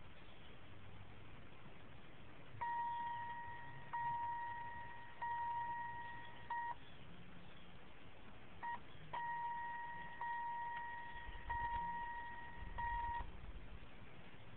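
A steady electronic beep, one held pitch, sounding in broken stretches of one to four seconds. Each stretch starts and stops with a small click, as if electrical contacts under the car's dash are being touched together and pulled apart while it is hot-wired.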